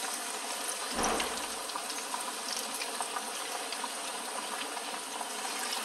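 Marinated chicken pieces deep-frying in hot oil over medium heat, sizzling steadily, with a brief low bump about a second in.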